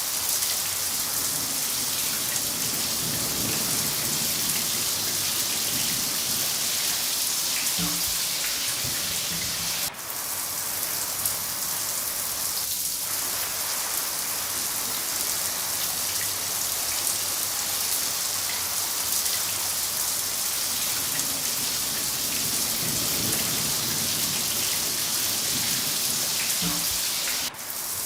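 Steady heavy rain, a dense even hiss, with low rumbles of distant thunder twice. The rain drops out for an instant about ten seconds in and again near the end.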